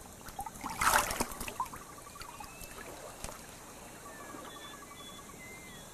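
A splash of water about a second in, then faint trickling and lapping water.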